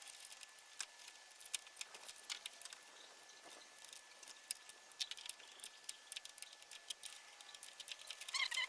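Scattered light clicks and taps of hands working on parts and fasteners in a car's engine bay, over a faint steady high tone.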